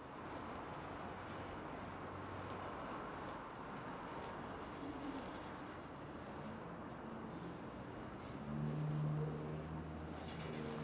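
A thin, steady high-pitched whine over faint background noise, with a low hum coming in about eight seconds in. No clear sound of the hand-winding of spring wire stands out.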